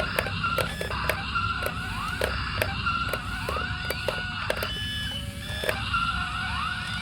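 Electronic beeping tones and rising whoop-like glides, with many sharp clicks, typical of a battery toy's built-in sound effects.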